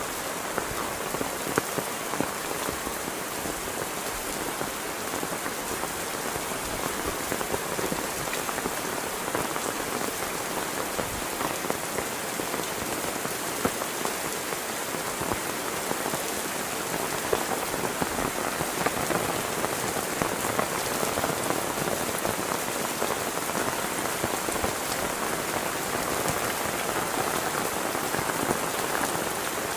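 Heavy rain falling steadily: a dense, even hiss of rain with many sharp individual drop impacts, growing slightly heavier about halfway through.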